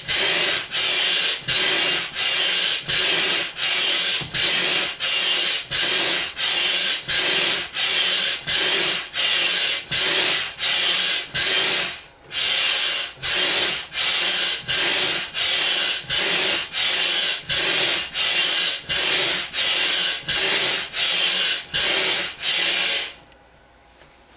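Hand air pump worked in steady strokes, each stroke a rush of air through the pump and hose into a large vinyl inflatable flamingo, about three strokes every two seconds. The pumping pauses briefly about halfway and stops a second or so before the end.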